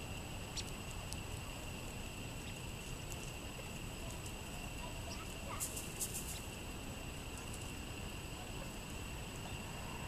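Quiet outdoor ambience: a steady high-pitched hum with scattered faint ticks, and a short run of rapid sharp clicks about six seconds in.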